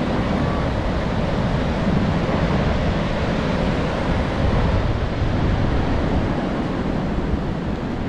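Ocean surf washing steadily, with wind noise on the microphone.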